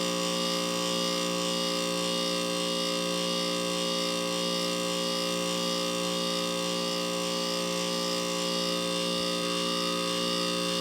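2-ton Heil heat pump's Copeland scroll compressor running through a defrost cycle: a loud, steady electric hum with a whine above it, unchanging throughout.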